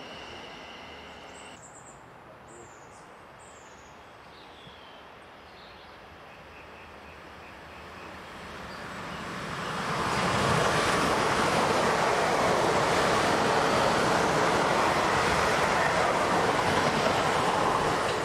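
A Siemens Desiro electric multiple unit approaches, faint at first, and grows over several seconds into a loud, steady rush of wheels and bodywork as it runs past close by, holding at that level until near the end.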